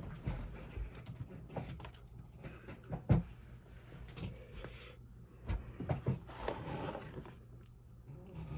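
Handling noises: scattered knocks, clicks and rustles as objects are moved about, with one louder thump about three seconds in.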